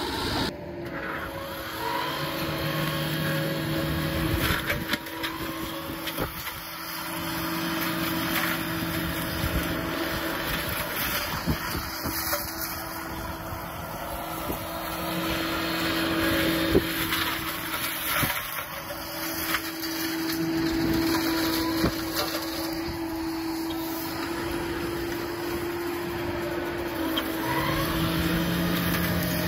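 Excavator running a hydraulic flail mower attachment: a steady mechanical whine with a lower hum that comes and goes, and scattered sharp knocks.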